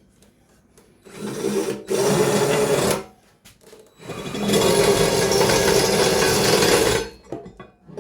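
Power drill boring bolt holes through the winch bumper's metal, run twice at a steady speed: a shorter run that builds up about a second in, then a longer one of about three seconds.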